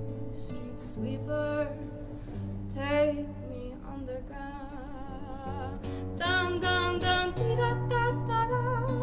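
Acoustic classical guitar picking steady notes, joined a few seconds in by a woman singing a wavering, held melody into the microphone, which grows louder in the second half.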